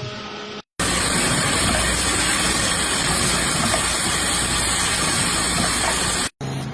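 Industrial CNC machining noise: a loud, steady hiss that cuts in abruptly about a second in and stops just as abruptly near the end.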